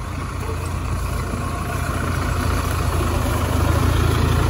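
Mahindra Thar 4x4's engine running under load as it crawls up an off-road slope, a steady low rumble that grows louder as the vehicle comes closer.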